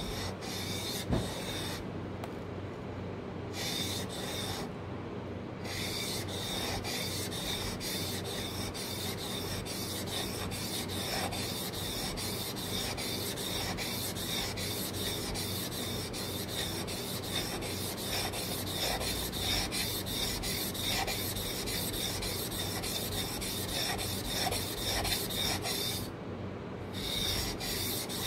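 Steel chisel blade scraping quickly back and forth on a wet Japanese waterstone with slurry, a few strokes a second, while the oire nomi is tuned. A single knock comes about a second in, and the strokes pause briefly near the start and again near the end.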